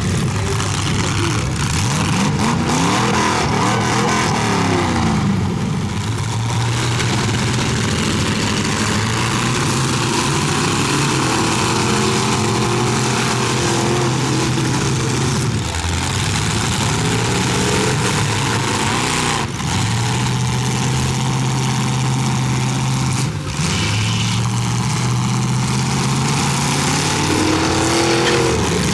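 Several demolition derby cars' engines revving hard, their pitches rising and falling over one another as the cars accelerate and reverse. Twice in the last third a sharp crash cuts through, cars colliding.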